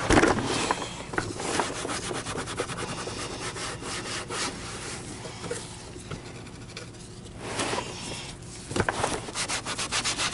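A cloth and a scouring pad rubbing and scrubbing over the hard plastic housing of a Miele canister vacuum in rapid back-and-forth strokes, working off paint marks. The strokes ease off for a few seconds in the middle and come back harder near the end.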